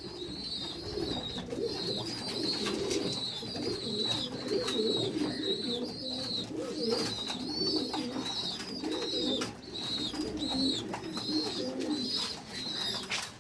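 A loft full of racing homer pigeons cooing, many birds overlapping without a break. A high thin chirp repeats steadily about every two-thirds of a second over the cooing, with scattered light clicks.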